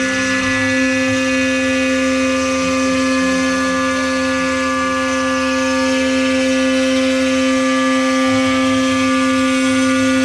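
CNC router spindle running with a steady whine made of several held tones, its end mill cutting into plywood.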